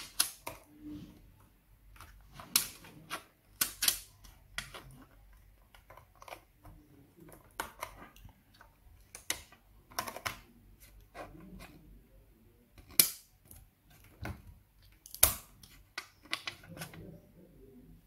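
Irregular sharp clicks and taps of a DDR4 laptop RAM stick being handled and pushed into its SO-DIMM slot on the motherboard, with the two loudest snaps in the second half.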